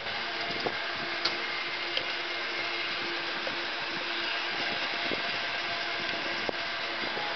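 San Francisco cable car running along its line: a steady mechanical running noise with one constant hum and a few scattered short clicks and knocks.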